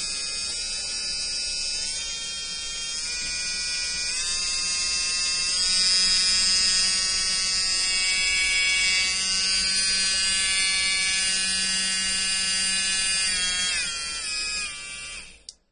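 Pen-style electric nail drill, rated 20,000 rpm, running free with a sanding band bit: a steady motor whine that steps up in pitch a couple of times as the speed is turned up. Near the end it steps down and then stops suddenly as the drill is switched off.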